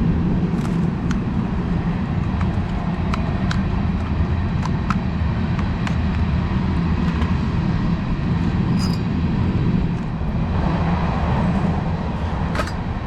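A steady low rumble with scattered small sharp clicks and ticks over it. The clicks are the handwork of twisting and handling steel tie wire.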